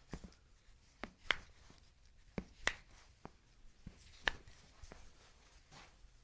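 Foot and toe joints cracking under a chiropractor's manipulation: a string of sharp pops about a second apart, the loudest a little after one second and a little after four seconds in.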